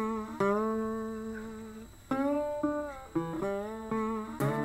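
Background music: a plucked guitar playing slow notes that ring out and fade, with a louder strum near the end.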